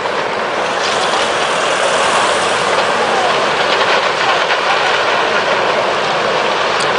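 Tsunami floodwater surging through a town: a loud, steady rush with scattered cracks and crunches of debris breaking up in the flow.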